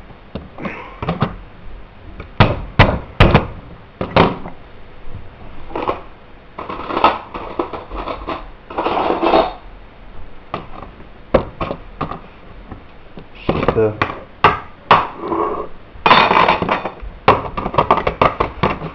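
A tin can being attacked with a can opener: irregular hard knocks and bangs, a few of them very loud, with some longer noisy stretches in between.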